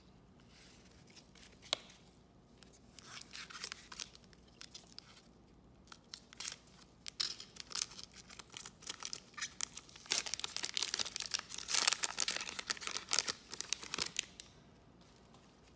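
Trading-card pack wrapper being torn open and crinkled as the cards are slid out. Scattered crackles at first, becoming dense crinkling about two-thirds of the way in.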